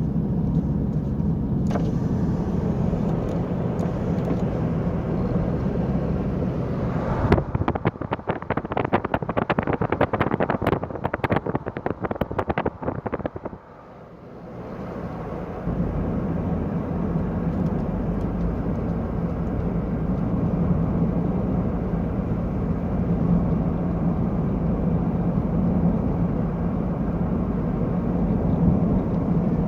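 A vehicle running steadily with a low hum, broken by several seconds of rapid knocking and rattling near the middle before the steady running returns.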